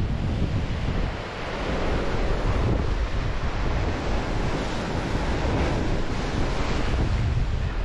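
Wind buffeting the microphone in gusts, over a steady rushing wash of sea waves.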